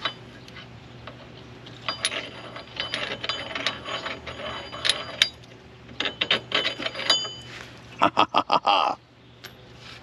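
Metal tools clicking and clinking against a car's rear wheel hub, some strikes leaving a short metallic ring. Near the end comes a brief rapid mechanical rattle of about six quick pulses, the loudest sound here.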